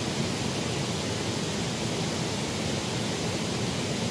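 Steady rushing of a small, shallow stream flowing over a riffle.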